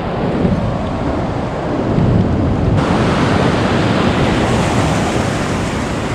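Ocean surf washing and breaking in shallow water, with wind buffeting the microphone. About three seconds in, the hiss of the water gets brighter and fuller.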